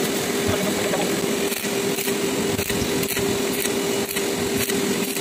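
Stick (arc) welding on the steel shaft of a crane clutch gear, building up weld beads: a steady frying crackle of the arc over a constant hum, with faint ticks about twice a second.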